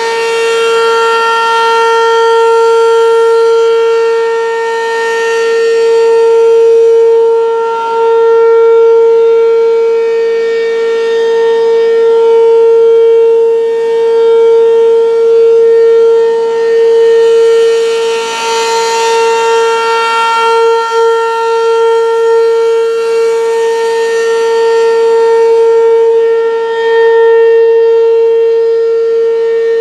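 American Signal RM-127 outdoor warning siren sounding a steady wail at a constant pitch during a test. Its loudness swells and fades every few seconds as the rotating siren sweeps toward and away.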